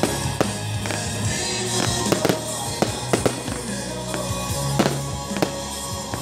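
Aerial fireworks bursting with frequent sharp bangs and crackles, over music with long held bass notes.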